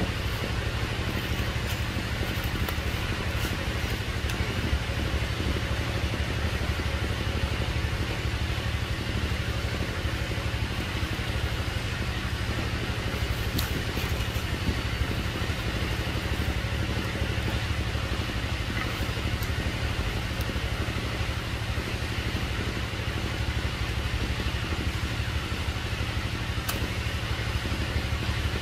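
Steady low droning hum with an even hiss over it, unchanging throughout, and a few faint ticks.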